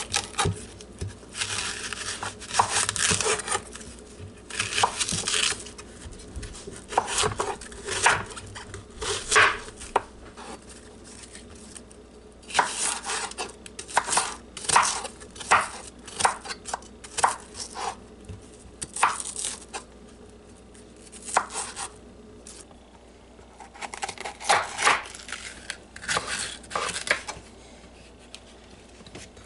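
A chef's knife chopping an onion, and near the end a red bell pepper, on a wooden cutting board. The blade knocks against the board irregularly, in quick runs of strokes broken by short pauses.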